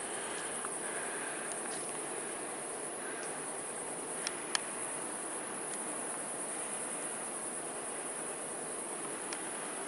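Steady chirring of night insects, crickets, with two short sharp clicks close together about four and a half seconds in.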